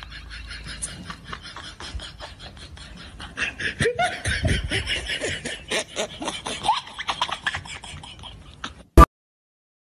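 A person laughing in quick breathy pulses, growing louder about three and a half seconds in. It ends in a sharp click and an abrupt cut to silence near the end.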